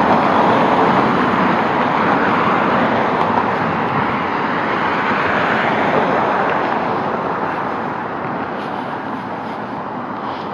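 Road traffic going by: a steady rush of vehicle noise that slowly fades over the last few seconds.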